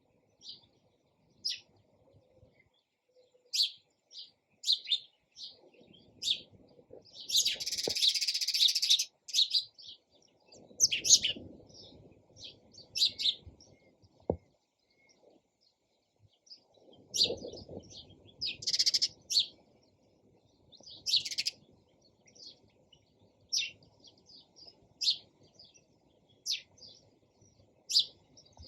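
Sparrows chirping in short, separate chirps, with one longer, denser burst of chatter about a quarter of the way in.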